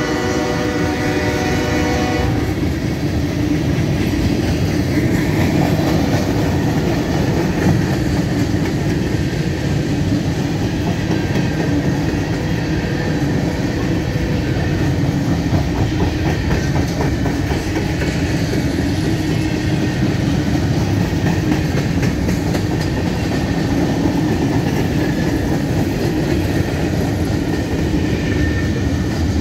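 A first-generation Nathan K5HL five-chime horn on a GE ES40DC diesel locomotive finishes a blast, cutting off about two seconds in. Then the freight cars roll steadily past close by, a continuous rumble with the wheels clicking over the rails.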